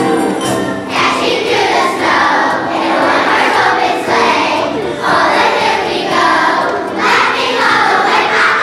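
A children's choir singing a holiday song over music with jingle bells; the voices come in about a second in.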